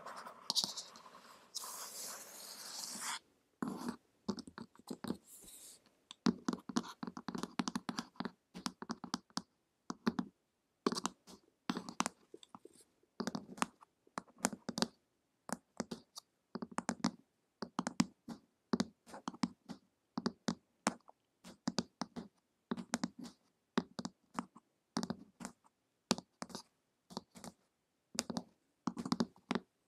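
Long fingernails scratching and tapping on a glossy printed cover close to the microphones. A steady scratching rub for the first three seconds, then quick, irregular clusters of nail taps.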